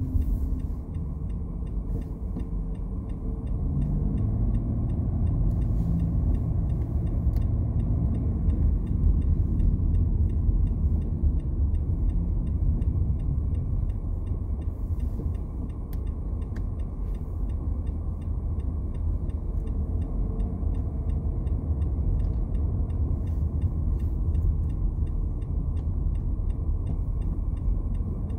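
Car cabin road noise, a steady low rumble, with the turn signal's regular ticking as the driver waits to change lanes.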